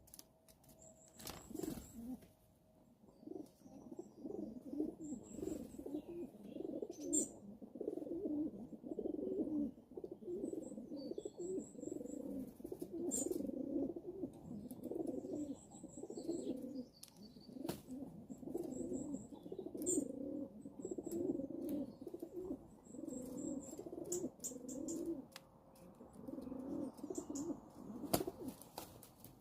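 Garden birds at a feeding spot: low, continuous pigeon-like cooing and burbling, with short high squeaky calls of starlings over it and a few sharp clicks.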